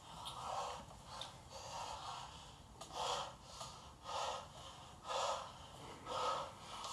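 A person breathing heavily and rhythmically, about one breath a second, each breath a short noisy puff.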